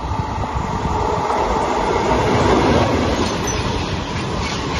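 Freight train passing close on the near track. The rumble builds to its loudest about two and a half to three seconds in. Covered sliding-wall wagons then roll by with light clatter and faint wheel squeals.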